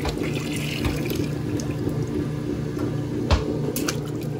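Whirlpool direct-drive top-load washer draining: its motor and drain pump hum steadily while water splashes out of the drain hose into a plastic tub. A single sharp knock sounds about three seconds in.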